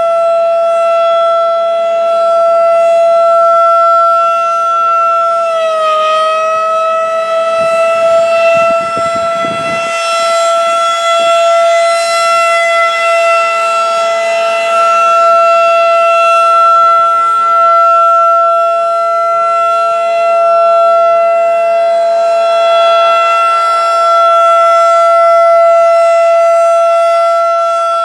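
Federal Signal 2001-DC roundback outdoor warning siren sounding a steady alert tone. Its pitch sags briefly about six seconds in and comes back up. A brief low rumble passes a few seconds later.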